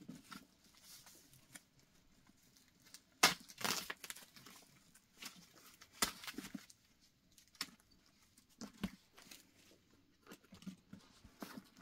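Tissue-paper stuffing crinkling and rustling in short bursts as it is handled and pulled from a handbag, with sharper crackles about three seconds in and again about six seconds in.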